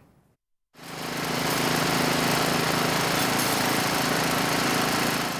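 Backpack blower's small two-stroke engine running steadily at high speed with a loud rush of air, blowing debris along a road joint under repair; it starts about a second in.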